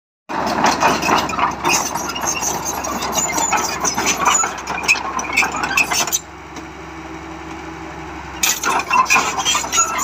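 Komatsu D37P crawler bulldozer driving over paving bricks: its steel tracks clank steadily over the diesel engine. Around six seconds in the track noise stops for about two seconds, leaving only the engine's steady note, then the clanking starts again.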